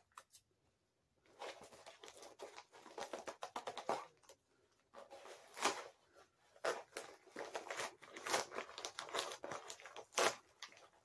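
Paper envelope being torn and crumpled open by hand, in irregular rustling bursts with a short pause about four seconds in.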